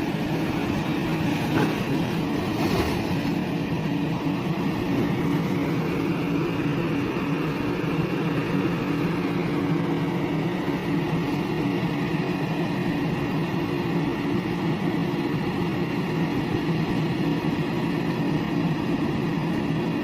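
Excavator's diesel engine running steadily, a deep even drone, with a couple of brief knocks about two to three seconds in.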